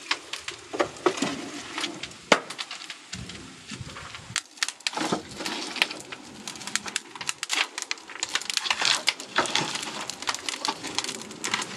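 Wood fire crackling and popping in the firebox of a wood-fired train kiln, with a few sharper knocks in the first couple of seconds as split firewood is pushed in.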